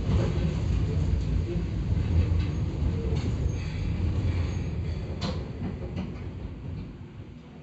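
Hakone Tozan Railway 2000-series electric train heard from inside, running with a low rumble that fades as it slows for a station stop. There is a sharp click about five seconds in.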